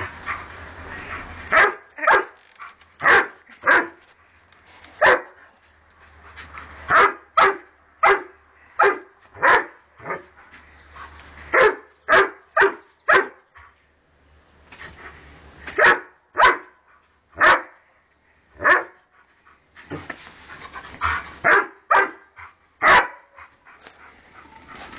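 A dog barking at the spray from a garden hose: about thirty short, sharp barks in irregular runs with short pauses. The dog is worked up at the hose as it plays.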